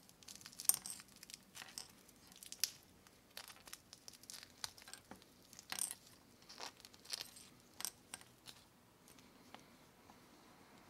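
Thin plastic cling film being peeled off a wristwatch's case: faint, irregular crinkling and crackling with small sharp snaps, dying away near the end.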